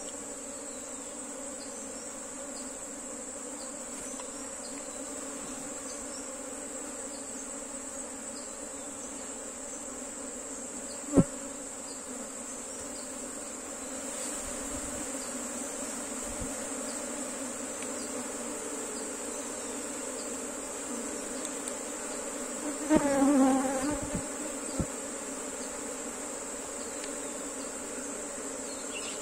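Honeybee colony humming steadily over the open hive's top bars, with a steady high-pitched whine underneath. A single sharp click comes about 11 seconds in, and a louder buzz with a wavering pitch swells briefly about 23 seconds in.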